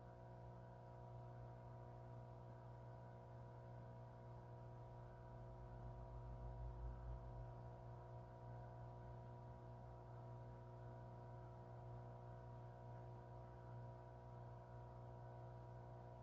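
A faint, steady hum of several held tones that does not change, with a slight low rumble about six to seven seconds in.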